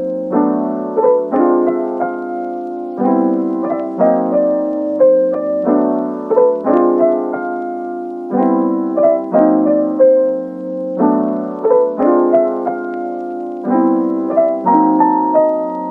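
Background music: a piano playing a short phrase of chords and melody notes, repeated over and over.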